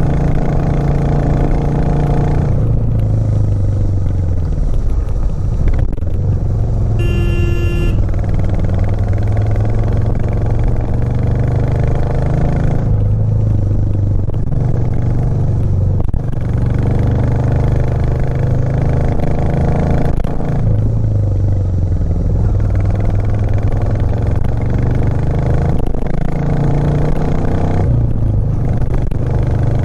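Royal Enfield Classic 350's 349 cc single-cylinder engine running as the bike is ridden, its pitch dropping and rising several times with throttle and gear changes. A horn sounds briefly about seven seconds in.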